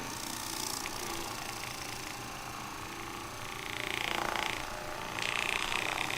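Percussion massage gun running against the lower back muscles with a rapid buzzing, louder for about a second around four seconds in and again near the end.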